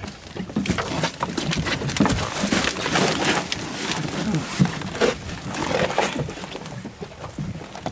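Fishing net and rope being pulled by hand over a shark's body and the boat's side: an irregular run of rustles, scrapes and knocks.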